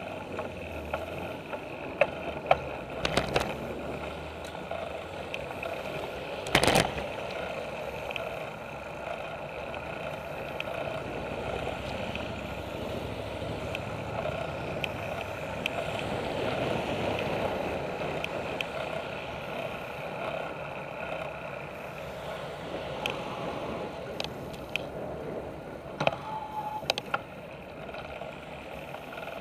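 Road bike riding along a paved path, heard through a handlebar-mounted camera: steady tyre and wind noise with sharp knocks and rattles as the bike goes over bumps, the loudest a few seconds in.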